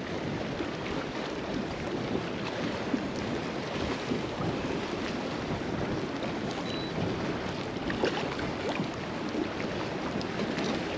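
Steady wind noise on the microphone and small waves lapping against a kayak on choppy water, with a few faint ticks in the second half.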